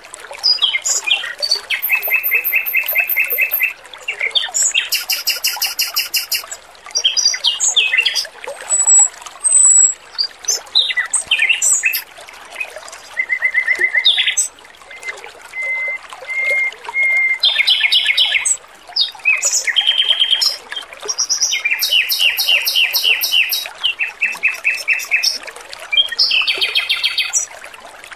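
Male Pekin robin (red-billed leiothrix) singing: phrases of rapid repeated notes and trills, some very high, with short gaps between them and a few thin held whistles near the middle. Trickling water runs faintly underneath.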